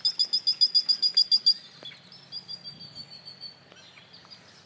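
Small bird calling a rapid run of high chirps, about nine a second, for a second and a half, then a fainter trill.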